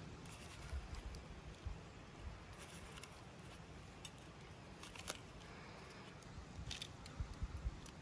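Large kitchen knife cutting into the tough rind of a pomegranate: a few faint, crisp cuts and crackles, the sharpest about five seconds in.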